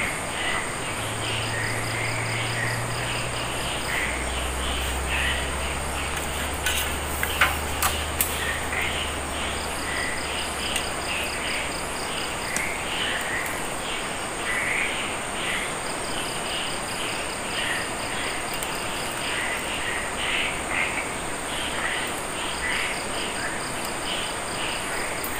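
Crickets and other night insects chirping steadily, with repeated short chirps, rapid trills and a constant high whine. A few sharp clicks come about seven to eight seconds in.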